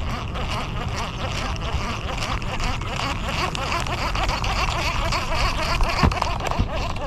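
Wind rumbling on the microphone over a dense chorus of many birds chattering, with a single knock about six seconds in.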